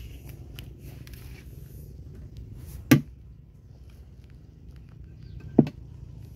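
Two sharp knocks about two and a half seconds apart, the first louder, over a steady low rumble.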